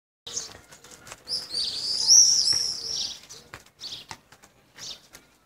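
Small songbirds chirping: short high-pitched chirps, with a louder warbling phrase of song about a second and a half in.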